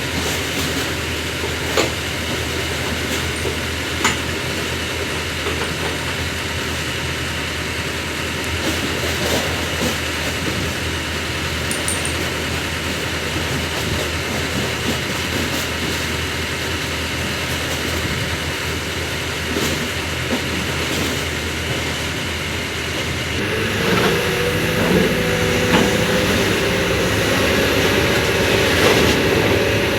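Kobelco SK200 hydraulic excavator's diesel engine running steadily, with a few sharp metal knocks. About three-quarters of the way through, the engine gets louder with a higher, slightly rising note as the machine works harder.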